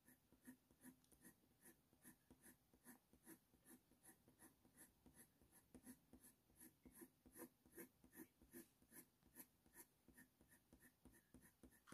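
Faint scratching of a Faber-Castell Polychromos coloured pencil on hot-press watercolour paper: short, even flicking strokes, about two and a half a second, laying in fur, a little louder in the second half.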